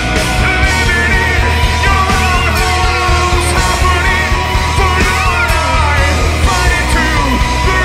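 A rock band playing live at full volume: electric guitars, bass guitar and drums, with a high melodic line that slides and bends over a steady heavy low end.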